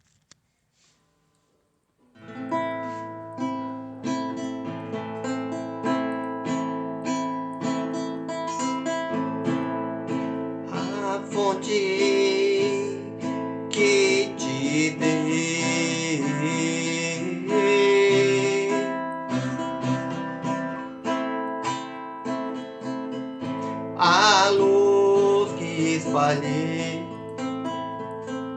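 Music: an acoustic guitar strumming chords, starting about two seconds in, with a wavering melody line over it at times.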